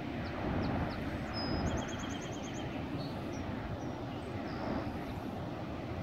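Steady low noise of Pacific surf breaking on the beach. Faint high chirps come through near the start, with a quick run of about eight around two seconds in.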